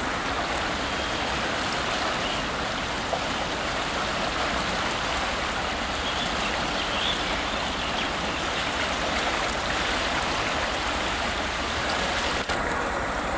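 Fast-flowing river water rushing and swirling around the concrete piers of a bridge: a steady, even rush of water.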